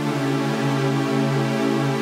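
Spectrasonics Omnisphere's 'Pure VCO Strings' patch from the Atmosphere Library playing sustained synth-string chords, several held notes sounding together with the upper notes moving.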